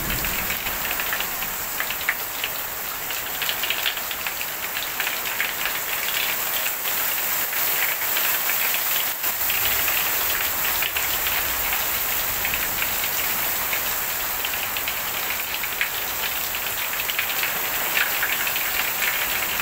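Hail and heavy rain pelting a roof and garden: a dense, steady hiss peppered with many small sharp ticks.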